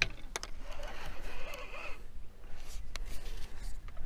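Baitcasting reel being cranked to bring in a flathead catfish, with a few sharp handling clicks at the start. A wavering call sounds about a second in.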